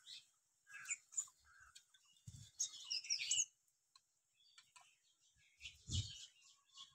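Small birds chirping in short, scattered calls, busiest around the middle, with a couple of dull thumps.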